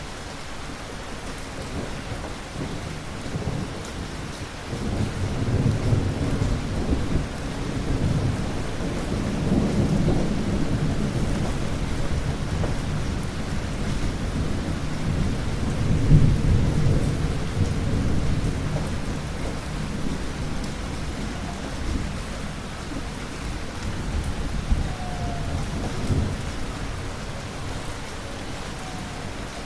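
Thunder rumbling over steady rain: a long, deep roll that builds about five seconds in, swells twice, strongest about halfway through, then fades back to the rain.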